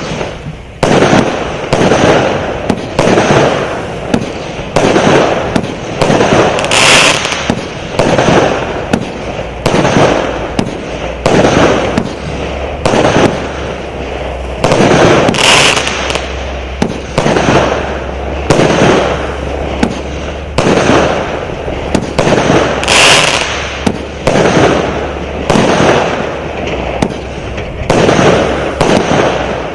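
'All Inclusive 120' consumer firework battery firing shot after shot, a loud bang about every second. About every eight seconds a brighter, crackling burst stands out.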